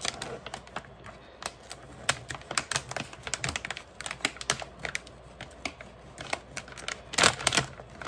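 Foil pouch and the sealed plastic bag inside it crinkling as hands handle and open them: a quick, irregular run of sharp clicks and crackles, with a louder burst of crinkling near the end.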